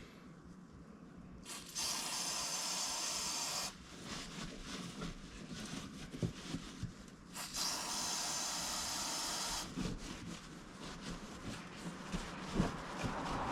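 Compressed air hissing from a tyre inflator gauge as a tyre is topped up, in two bursts of about two seconds each, with light knocks of handling in between.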